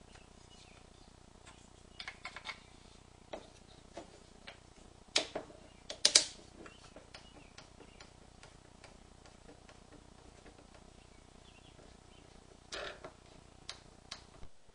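Scattered light clicks and knocks of small wooden parts being handled and fitted together, the loudest a sharp pair about six seconds in, with a screw being driven by hand with a screwdriver into the wooden rail. A few more clicks come near the end.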